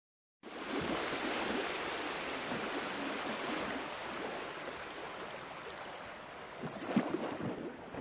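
Sea surf washing on a beach, a steady rush of noise that cuts in suddenly just under half a second in, with a couple of faint knocks near the end.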